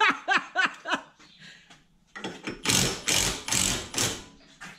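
A man laughs briefly. Then, from about two seconds in, an impact wrench (rattle gun) hammers loudly for about two seconds in several back-to-back bursts, tightening bolts.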